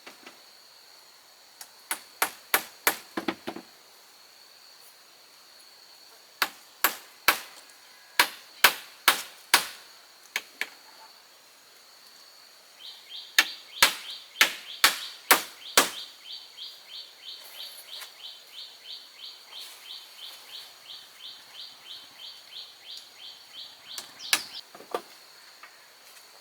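Sharp strikes on wood in three quick runs of about six blows each, then a steady rhythmic rasping at about two strokes a second lasting roughly ten seconds, over a constant high insect drone.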